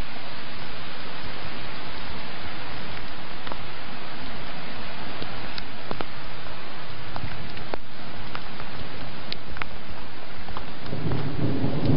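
Heavy rain pouring down, a steady hiss close on the camera's microphone, with scattered sharp ticks of single drops. A low rumble swells in near the end.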